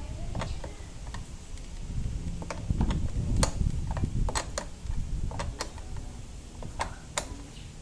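Irregular sharp clicks and taps, about a dozen and unevenly spaced, as parts and hand tools are handled during scooter reassembly, over a low rumble that swells about three seconds in.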